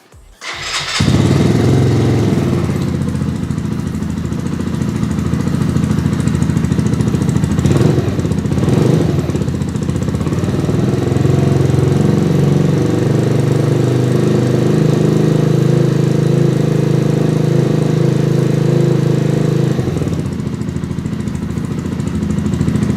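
Mutt Mongrel 125's single-cylinder four-stroke engine started on the electric starter, catching within about a second and then running steadily at idle. The engine note shifts briefly around eight seconds in and changes again near the end.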